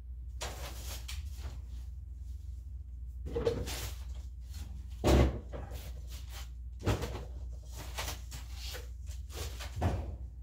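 Objects being shifted, knocked and rummaged through by hand: scattered rustling and clattering, with a heavy thump about five seconds in and sharper knocks a couple of times after.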